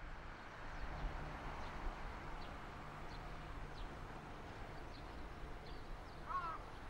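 A JR Kyushu KiHa 125 diesel railcar approaching in the distance: a faint, steady low engine rumble. Small birds chirp a few times over it.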